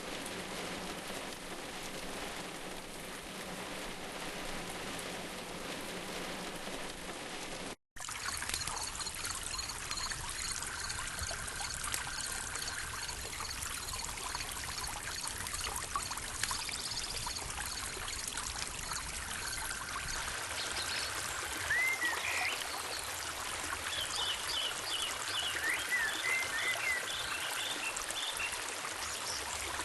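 Steady rain-like hiss, then, after a sudden break about 8 seconds in, running water with birds chirping and calling over it in the latter part.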